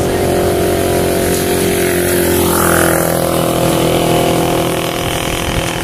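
An engine running at a steady drone.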